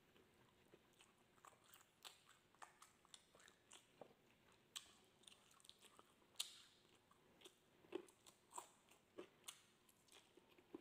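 Faint chewing and mouth noises from eating grilled meat off barbecue skewers: scattered small wet clicks and smacks at an irregular pace, a few slightly louder ones in the second half.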